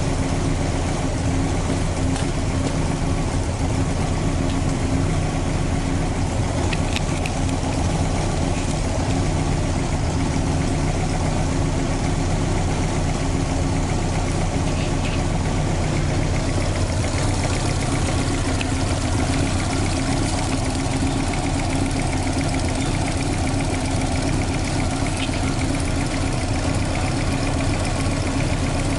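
Toyota 4A-GE 20-valve twin-cam four-cylinder engine in an AE86 idling steadily, an even note that holds without revving.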